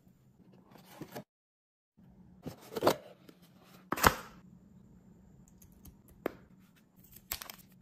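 Cardboard packaging being handled: card and paperboard inserts rustling and scraping, with a few sharp clicks and knocks, the loudest about four seconds in.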